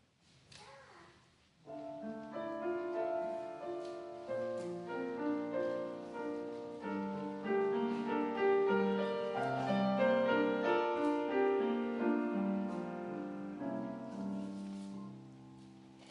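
A piano plays a chordal introduction. It starts about two seconds in, with sustained notes overlapping in a flowing accompaniment, and dies away near the end.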